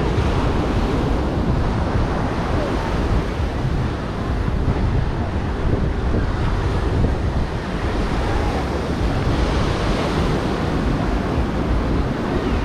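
Ocean surf breaking on the beach, with wind buffeting the microphone in a steady low rumble.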